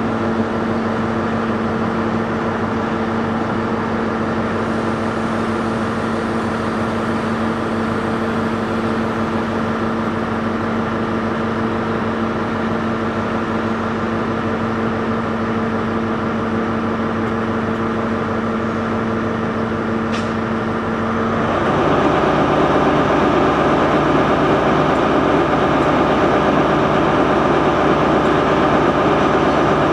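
Diesel train engines running steadily as a CrossCountry Class 170 Turbostar diesel multiple unit moves slowly through the station. About two-thirds of the way in this cuts abruptly to a louder, fuller engine hum from an idling HST Class 43 diesel power car at the platform.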